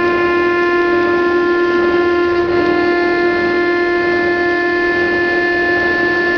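Woodworking CNC router running, its spindle giving a loud, steady high-pitched whine over a rushing noise. The pitch drops a little about two and a half seconds in.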